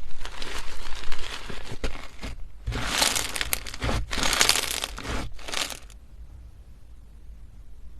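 Slime being handled and squeezed, giving dense crackly noise full of small pops in two long stretches with a brief pause between, then going much quieter about three quarters of the way through.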